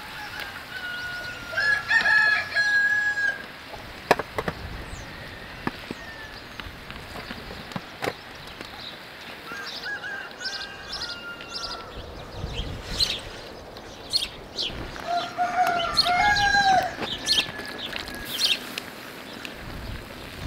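A rooster crows several times, each crow a held, stepped call, with sharp clicks and knocks in between.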